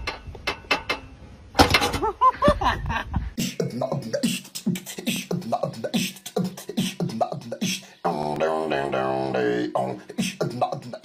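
Vocal beatboxing: quick rhythmic mouth clicks and beats mixed with short pitched vocal tones, starting about three seconds in after a few sharp clicks and brief sliding tones.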